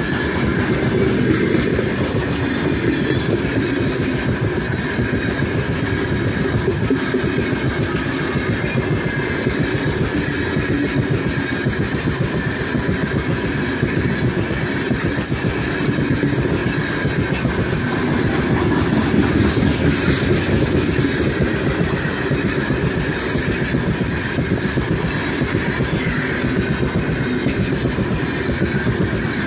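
Freight train of open-top gondola wagons passing close by: a steady rumble of steel wheels on the rails with a fast, continuous run of knocks as the wheels cross the rail joints.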